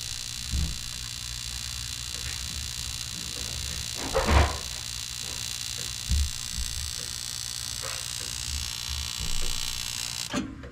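Steady electric hum and hiss of the boiler's circulator pumps running while the burner has not yet lit, with a few soft bumps, the loudest about four seconds in. The steady noise cuts off suddenly near the end.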